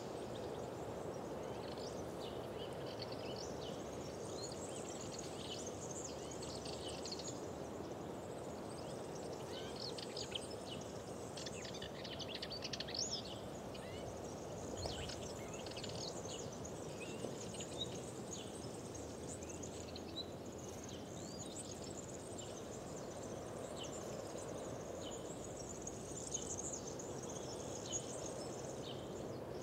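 Several birds chirping and trilling continuously over a steady rushing background noise.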